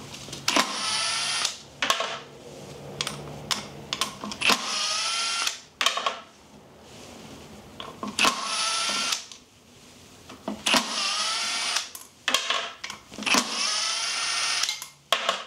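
Cordless power driver backing out the 4 mm Allen bolts of an e-bike hub motor's housing in five short runs of about a second each. Its motor whine rises in pitch as it spins up each time, with short clicks of the bit and bolts between runs.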